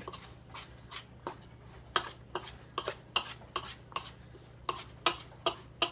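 A tablespoon knocking and scraping against a mixing bowl while minced chicken filling is stirred: irregular sharp clacks, about two a second.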